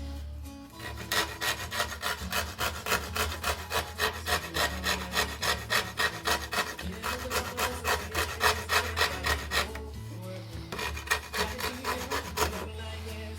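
Microplane rasp stroked back and forth across the wooden shoulder of a Greenland paddle blank to remove stock, in rapid even strokes about three to four a second. The strokes pause briefly about ten seconds in, then resume more lightly.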